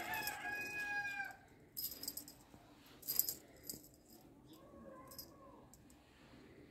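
A feather wand cat toy jingles and rattles in several short shakes, the loudest about three seconds in. A bird's long, slightly falling call sounds at the start, and a fainter call comes about five seconds in.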